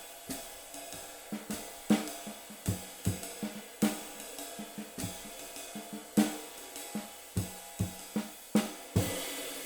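Drum kit being played: an irregular run of snare, bass drum and cymbal strokes over a steady cymbal wash. It ends about nine seconds in on a cymbal crash that rings out and slowly fades.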